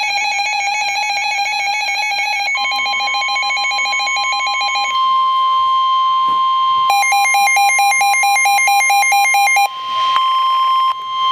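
NOAA Weather Radio emergency alert signal: buzzy, warbling bursts of the SAME digital header code overlapping the steady, high 1050 Hz warning alarm tone. The tone plays alone for about two seconds in the middle, and again after the last data burst stops near ten seconds in.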